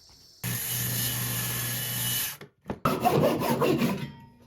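Woodworking tools cutting oak: a steady hiss with a low hum for about two seconds, a short break, then about a second and a half of uneven rasping strokes.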